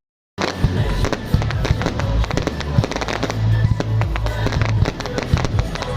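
Fireworks crackling and popping in quick succession over loud music with a steady low bass. The sound cuts out for a moment at the very start.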